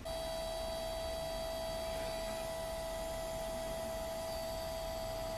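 HP Sprocket pocket photo printer running as it feeds a ZINK photo sheet through and prints it: a steady motor whine.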